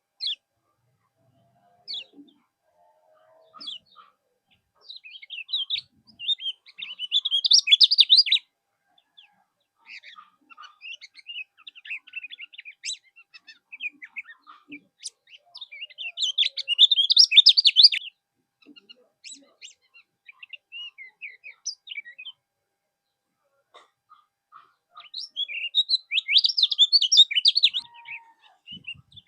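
Kecial kuning songbird singing: scattered single chirps broken by three fast, busy song phrases of rapid high notes, each lasting a couple of seconds.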